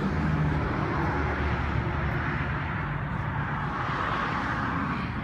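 Motor vehicle running close by: a steady low engine hum under a broad rush of noise that swells about four seconds in.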